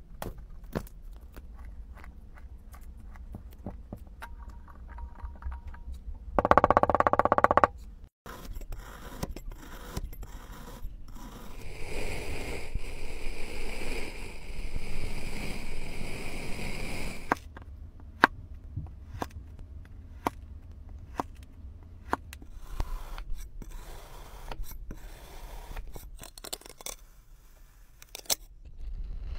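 Close-miked kinetic sand being scraped and cut with metal tools: gritty scraping and fine crackling of the sand. A brief loud burst comes about six seconds in, and from about twelve seconds a steadier scrape runs for about five seconds.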